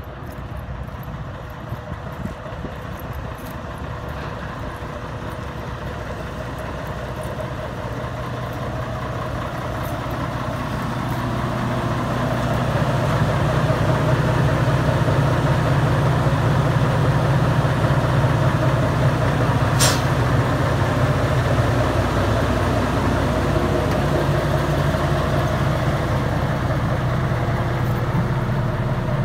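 Bell B40D articulated dump truck's Mercedes OM501LA V6 diesel engine idling steadily. It grows louder about a third of the way in and then holds. There is one brief hiss of air about two-thirds of the way through.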